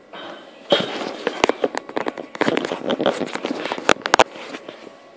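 Dense crackling and rustling with sharp clicks for about three and a half seconds, then stopping: handling noise from the recording device being moved, rubbing against its microphone.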